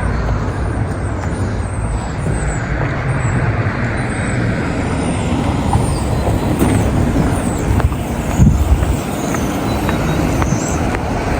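Road traffic: motor vehicles running and passing close by, a continuous rumble of engines and tyres, with a low thump about eight and a half seconds in.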